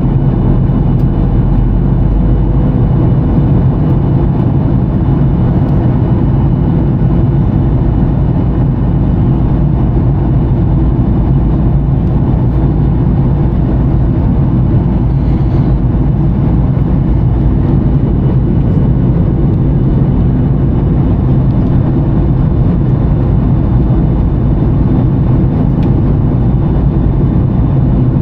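Steady rumble and rushing of a Boeing 737-900ER in flight, heard inside the cabin, with the engines and airflow holding at an even level.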